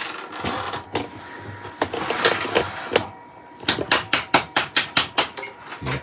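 Metal clicks and knocks from hands working a woodturning lathe's scroll chuck and its key, the machine switched off. A quick even run of about ten sharp clicks comes past the middle.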